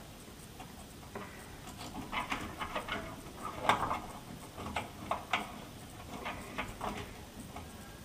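Small clicks and rustling scrapes of household electrical wires being twisted together by hand in a ceiling box, with sharper clicks a little past three and a half seconds in and again around five seconds.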